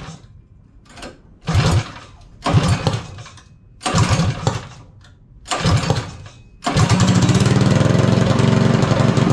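Small four-stroke go-kart engine being cranked: four short bursts about a second apart, then it catches about two-thirds of the way through and keeps running steadily.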